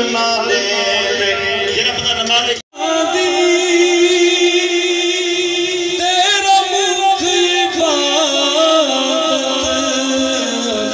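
Devotional chanting by a voice through a microphone, with long held, wavering notes; the sound drops out abruptly for a moment about two and a half seconds in.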